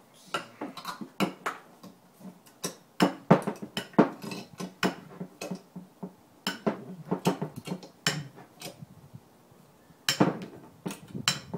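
Small metal drill-press vise being cranked to press a steel spring pin into a plastic part, with irregular metallic clanks and knocks as the vise handle rattles and the vise rocks on a wooden table.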